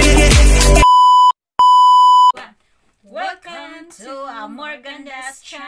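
Intro pop music cuts off abruptly about a second in, followed by two loud, steady electronic beeps, the second slightly longer. Women's voices start quietly near the middle.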